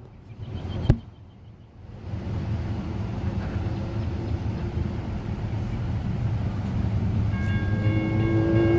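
A pair of GE ES44AH diesel locomotives leading a freight train approaches, the engines' low rumble building slowly louder. Near the end a multi-note locomotive horn begins to sound.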